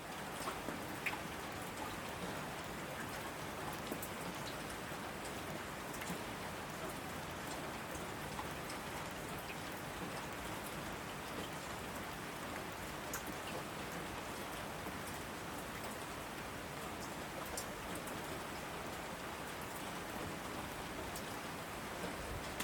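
Heavy rain falling steadily on asphalt: an even hiss with many small, sharp drop splashes scattered through it.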